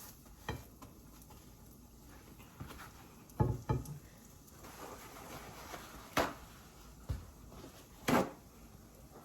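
Scattered light knocks and clatter of a cooking utensil against a pan as a pancake is worked on, about six separate knocks, the loudest a little past three seconds in.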